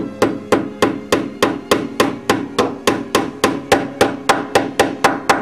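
A small hammer driving a nail into a panel of iron and nails, in quick, even blows of about four a second.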